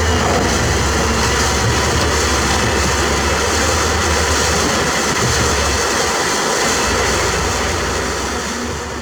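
Heavy diesel earthmoving machinery running steadily with a deep engine rumble, fading out near the end.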